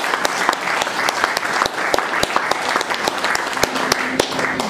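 Audience applauding: many hands clapping, dense and irregular, dying away at the very end.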